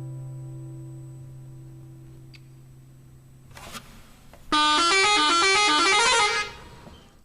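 A strummed acoustic guitar chord dies away. Then, about four and a half seconds in, a multi-tone 'telolet' bus horn plays a quick run of notes stepping upward for about two seconds.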